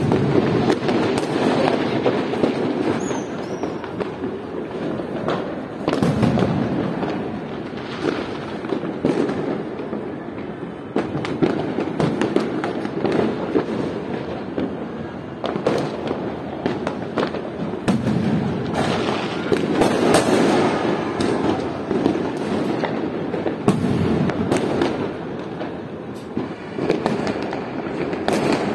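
Many fireworks and firecrackers going off at once: a continuous din of overlapping bangs and crackling, swelling and easing without a break.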